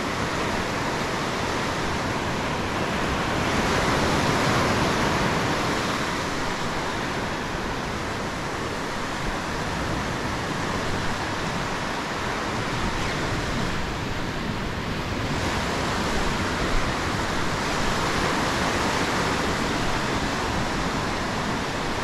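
Surf washing in over a sand beach: a steady rush of breaking waves and foam running up the shore, swelling and easing as the waves come in.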